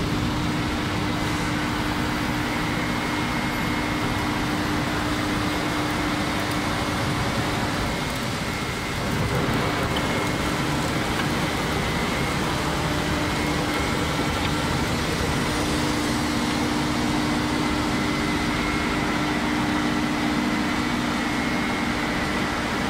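Paper-pulp reject separator running: a steady machine drone with a constant low hum and a faint high tone over it.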